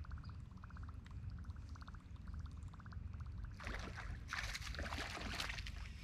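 A largemouth bass striking a Whopper Plopper topwater lure: sudden splashing at the water's surface starts about three and a half seconds in, then comes again in bursts as the hooked fish thrashes.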